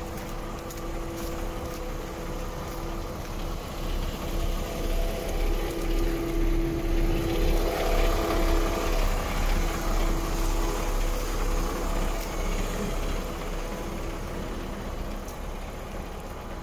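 DAF XF 460 truck's PACCAR MX-13 six-cylinder diesel idling steadily with a low rumble and a held hum. It grows louder in the middle with a slow swell and ebb, then eases off toward the end.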